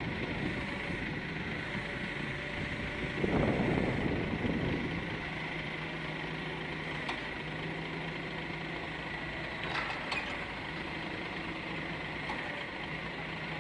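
Heavy diesel machinery running steadily, a crawler piling rig moving onto a lowloader trailer with the truck standing by. A louder, rougher surge comes about three seconds in, and a few short sharp clicks follow later.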